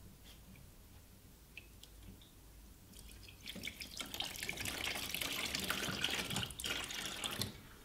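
Water running out of a valve on a copper pipe. It starts about three and a half seconds in and stops abruptly shortly before the end. A few light clicks from handling the fitting come before it.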